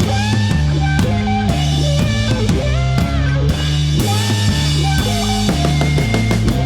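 Background rock music with drums, bass and guitar playing a steady beat.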